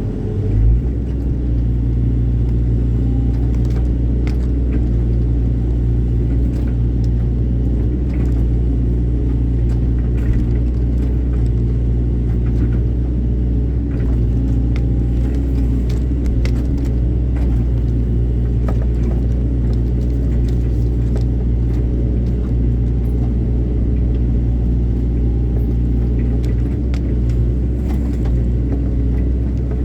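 Excavator's diesel engine running steadily with a deep, even drone, with scattered faint clicks and knocks over it.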